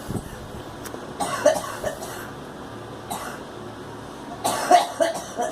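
A girl coughing in two bouts of short, sharp coughs, one about a second in and a louder one near the end.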